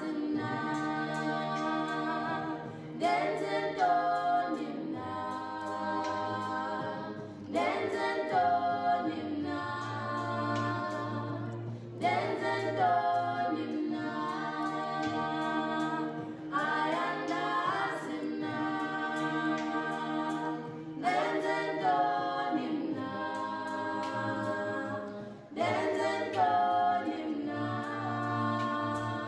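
Background music: a song of several voices singing in harmony, choir-like, in phrases that recur about every four to five seconds.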